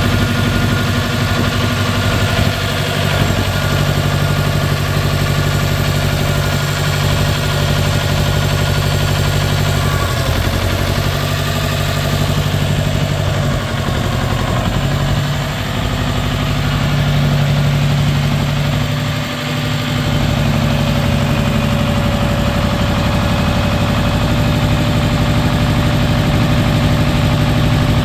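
Jinma 4WD 20 hp tractor's diesel engine running steadily at idle, its sound dipping briefly twice in the second half.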